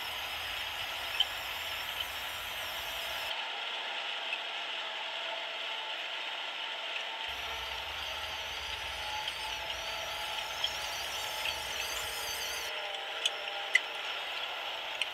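Plastic toy tractor and its cultivator tines dragging and rolling over loose gravel and wood chips: a steady gritty crunch with scattered sharp clicks, a few louder ones near the end.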